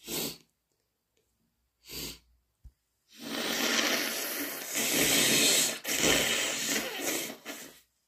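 A person with an allergic, runny nose sniffles twice, then blows their nose hard into a tissue in two long blows, the second starting about three quarters of the way through.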